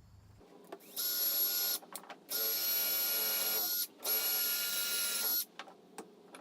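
Handheld power drill running in three short bursts with a steady high whine, each starting and stopping sharply, as it bores a 5/32-inch pilot hole into a wooden desk leg for a lag screw.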